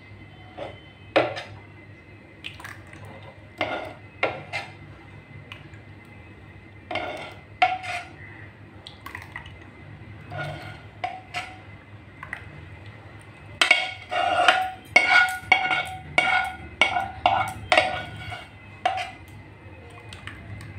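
Steel ladle scraping and clinking against a non-stick pan as thick milk mixture is scooped out, in scattered single strikes at first, then a quick run of scrapes and clinks about two-thirds of the way in.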